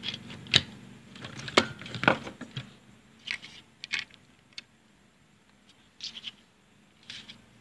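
Scattered light clicks, taps and scrapes of a plastic washing-machine door-lock switch assembly being handled by hand, about a dozen separate knocks with short pauses between.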